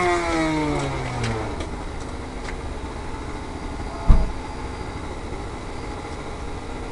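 A model airplane motor's tone glides steadily down in pitch and fades over the first second and a half, leaving a steady low noise. A single sharp thump comes about four seconds in.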